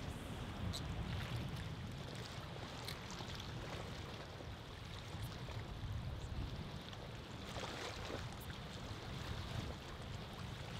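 Wind buffeting the microphone over rippling water, a steady low rumble with a few faint ticks.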